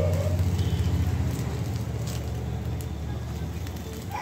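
Aluminium-foil fish parcels crinkling and crackling as fingers pick at them in a hot pan, over a steady low rumble that slowly fades.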